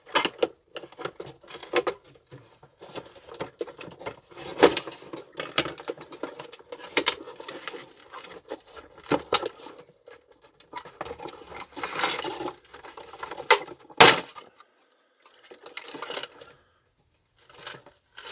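Plastic parts of a vacuum cleaner's housing being handled and worked apart by hand: scattered clicks, knocks and rattles of plastic, with one sharp knock about fourteen seconds in.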